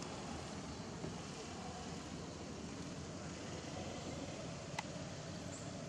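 Steady outdoor background rumble and hiss, with one sharp click about five seconds in.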